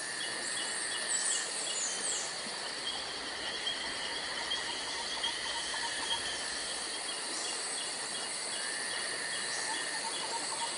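Outdoor insect and bird ambience: a steady high insect drone, a chirp repeating about three times a second, and a few short falling bird calls in the first couple of seconds.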